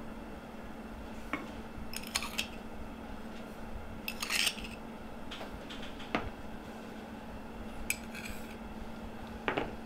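Spoons and dishes clinking as a seasoning mix is measured out and stirred: scattered light knocks and clinks against bowls, about eight in all, the loudest about four seconds in, over a faint steady hum.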